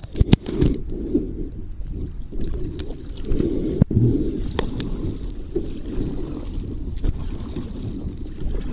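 Kayak being paddled on a lake: irregular sloshing and splashing of water at the hull, with a few sharp knocks, the loudest about four seconds in.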